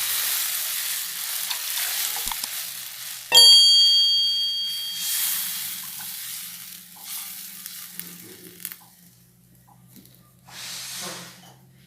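Ghee tempering sizzling in a kadai as the tamarind water is added, the sizzle fading over the first few seconds. About three and a half seconds in, a metal vessel strikes the pan with a single ringing clang, followed by more short bursts of sizzling that die away.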